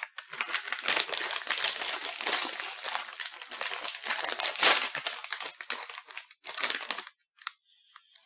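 A crinkly plastic snack bag of arare rice crackers being opened and handled, crackling and crinkling without a break for about seven seconds, then only a few short rustles near the end.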